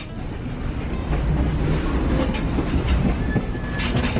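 Steady rumble of a moving passenger railroad car heard from inside, with a short faint high tone near the end.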